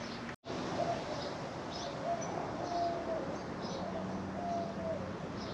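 Doves cooing, short low coos repeating about once a second, with other birds chirping higher up over a steady outdoor hiss. A brief dropout about half a second in.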